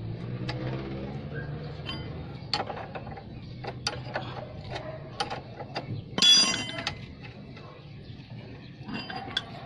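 Scattered light metallic clicks of a combination wrench working the nut on a Suzuki Multicab's tie-rod end stud, with one louder ringing metal clink about six seconds in.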